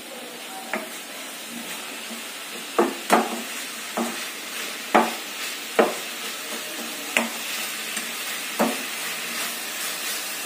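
Grated radish sizzling steadily as it fries in a kadhai on a high gas flame, while a spatula stirs it and knocks against the pan about seven times at irregular intervals.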